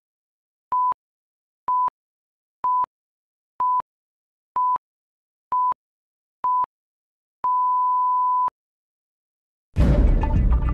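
Countdown leader beeps: a short, steady pure-tone beep about once a second, seven in a row, then one longer beep lasting about a second. Music starts abruptly near the end.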